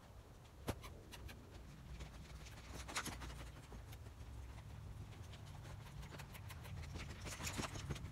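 Hoofbeats of a young saddled mustang moving around a sand round pen: irregular soft thuds and scattered sharp clicks, with a sharp click about a second in and denser clusters around three seconds and near the end.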